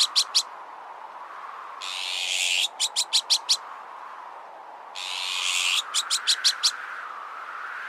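Azure-winged magpie alarm calls repeating about every three seconds: a harsh rasping screech followed by a quick run of five or six short, sharp calls. Under them runs a steady wind noise that slowly rises and falls.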